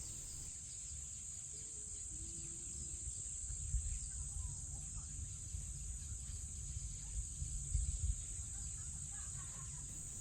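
African bush nature ambience: a steady, high-pitched insect drone over a low rumble, with a few faint, short bird calls.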